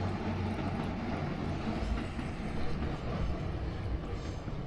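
A vehicle's steady low rumble.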